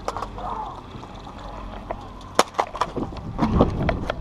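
Footsteps on dry dirt with the rustle and rattle of heavy body armour and gear as the player walks, and several sharp clicks in the second half.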